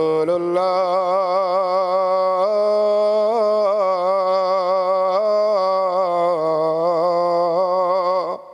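A muezzin's solo voice singing the adhan (Islamic call to prayer), drawing out the testimony to Muhammad ('Ashhadu anna Muhammadan rasulullah') as one long ornamented phrase with wavering melisma. The phrase stops shortly before the end.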